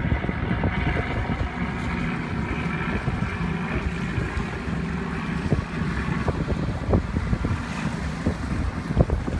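Wind buffeting the microphone in uneven gusts, over the steady drone of motorboat engines running in the inlet.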